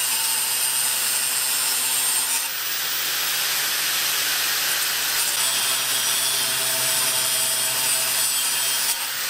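Angle grinder with a thin cut-off wheel slicing through metal tubing: a steady, unbroken grinding hiss with the motor's whine underneath.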